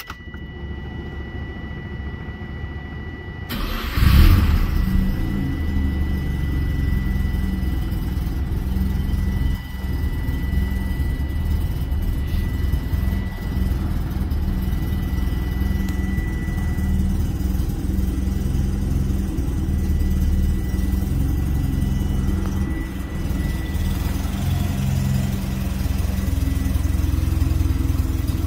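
1982 Mazda RX-7's 12A two-rotor rotary engine cranking for about three and a half seconds, then catching with a loud burst and settling into steady running: a cold start without choke after the car has sat for over a day. A thin steady high tone sounds over the first half and fades out.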